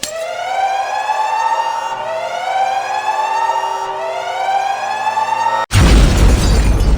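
Alarm siren sound effect wailing in three rising sweeps about two seconds apart, cut off near the end by a loud explosion sound effect with a deep rumble.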